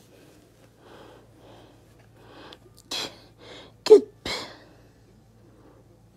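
A person sneezing, loudest just before four seconds in, with short breathy bursts just before and after it.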